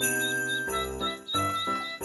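Background music: a bright tune of sustained notes changing every half second or so, with jingle bells shaking in rhythm.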